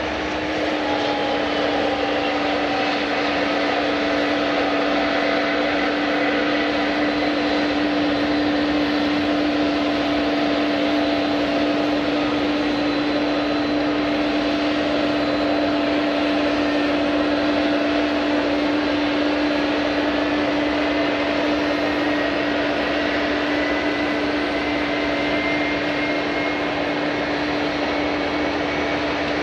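Jet airliner engines running steadily, a low hum with a whine above it. A higher tone slowly rises in pitch through the second half.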